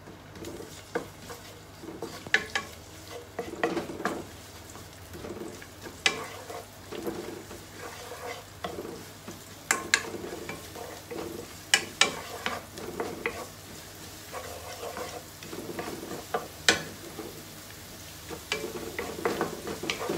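Chopped garlic frying with a soft sizzle in a nonstick frying pan, stirred with a wooden spatula that scrapes the pan and knocks against it with a sharp tap every few seconds. The garlic is being cooked to golden brown.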